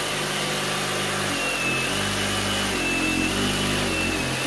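Power saw running steadily as it makes a cut to open up the wild bee hive. Its motor pitch shifts as the load changes, and it stops just at the end.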